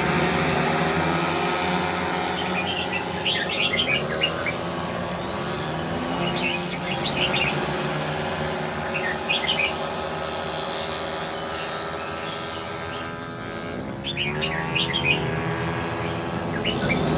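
Racing car engines running as a steady drone, their pitch sweeping up and down about three-quarters of the way through. Short bursts of bird chirps come through five times over the top.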